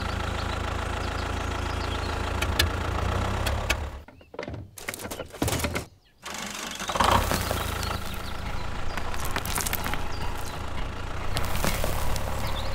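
Toy mini tractor's motor running with a steady hum while it drags a cultivator through sand. The hum drops away for about two seconds in the middle, with a few sharp clicks, then runs on.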